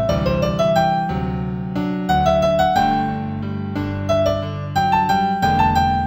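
Piano playing a slow, gentle new-age melody in G major over low sustained chords, each note struck and left to ring.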